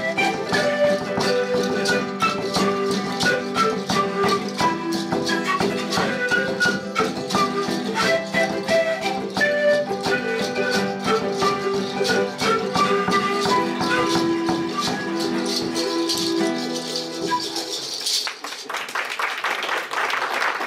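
Live Andean folk ensemble playing a lively tune: charango and guitar strumming, panpipes carrying the melody, and a large bombo drum beaten with a mallet. The tune ends about three-quarters of the way through, and applause follows.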